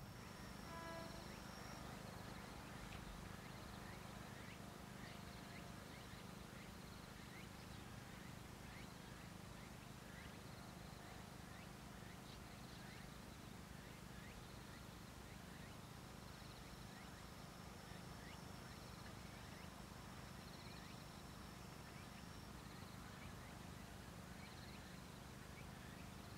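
Faint field ambience of insects chirping in the grass, with a high steady trill held for several seconds in the second half, over a low steady hum.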